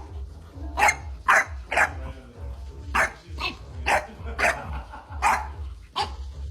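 A dog barking repeatedly: short, sharp single barks coming about every half second to a second.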